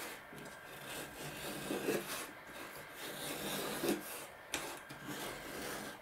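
Small razor plane shaving the edge of a balsa tailplane, in a series of short rasping strokes about one a second, as the tailplane's edge is profiled.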